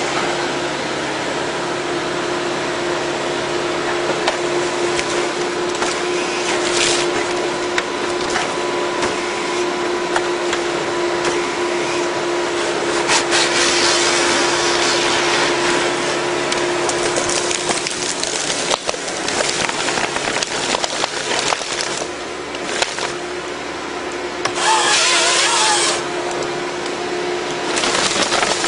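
Forestry harvester working: its engine and hydraulics running with a steady hum, under the cracking and splintering of wood as the head grips the tree and strips branches. Two louder bursts of sawing, about halfway and near the end, as the head's saw cuts through the trunk.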